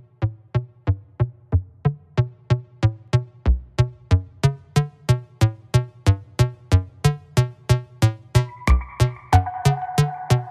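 Electronic background music with a fast, even drum-machine beat; a held synth chord comes in near the end.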